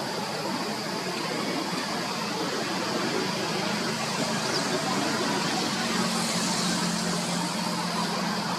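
Steady outdoor background noise with a motor vehicle's engine hum; the low hum grows stronger about two-thirds of the way through.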